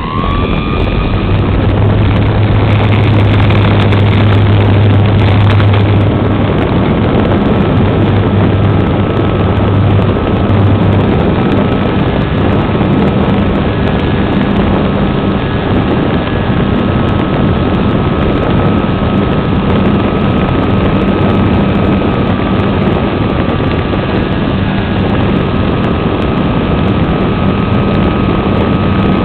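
Electric motor and propeller of a radio-controlled SIG Riser model plane at full power, heard from a camera on the plane during takeoff and climb. A steady high whine, which settles to its pitch within the first second, sits over a loud rush of wind and propeller wash.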